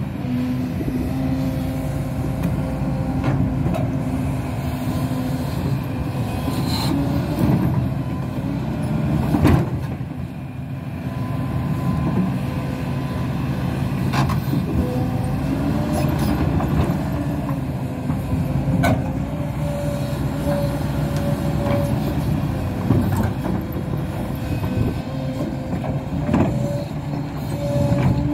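Hidromek 230LC excavator's diesel engine running under load with a shifting hydraulic whine, while the bucket digs into stony ground with several sharp knocks and scrapes.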